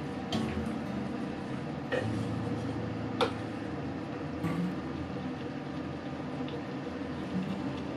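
Wooden spatula stirring vegetables in a frying pan, with three sharp knocks of the spatula against the pan in the first few seconds.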